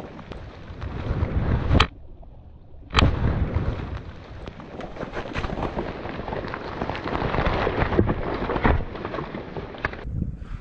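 Mud, water and debris thrown up by a 2-pound Tannerite blast raining down onto grass, dead leaves and the camera, a dense crackling patter. There are two sharp loud bangs, about two and three seconds in, with a brief quieter gap between them, and the patter dies away near the end.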